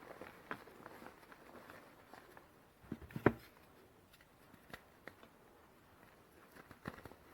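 Reformed gym chalk pieces crunching and crumbling in a few scattered soft cracks, the loudest a quick cluster about three seconds in.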